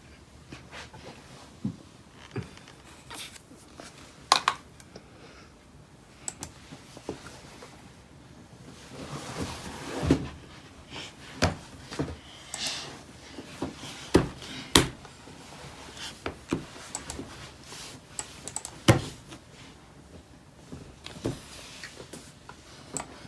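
Scattered sharp clicks and knocks, irregular and a few seconds apart, with soft rustling between them, from hands working a laptop and moving on a hard tabletop.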